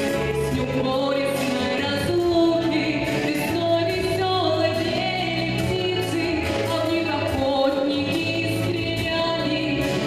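Girls' vocal trio singing in harmony into microphones, with long held notes over a recorded backing track with a steady bass line.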